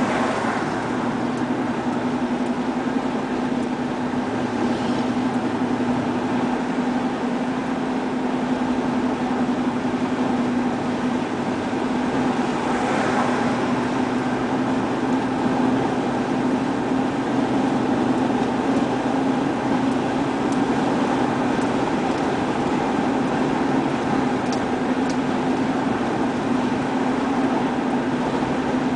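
Road noise inside a moving car: a steady drone of engine and tyres on the highway, with a brief swell of hiss about thirteen seconds in.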